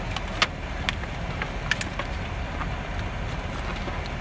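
Clear plastic clamshell pastry box clicking and crinkling as it is handled close to the microphone, with scattered sharp clicks, over a steady low rumble of the car.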